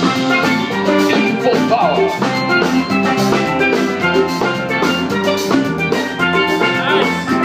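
Live band playing upbeat dance music with a steady beat and sustained melodic notes.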